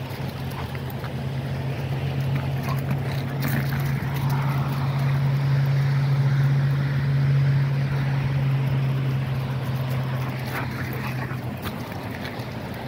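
A steady, low engine drone at one pitch that swells to its loudest about seven seconds in and fades out near the end.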